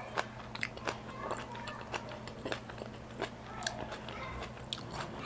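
A person chewing food close to the microphone, with irregular sharp mouth clicks a few times a second over a faint steady hum.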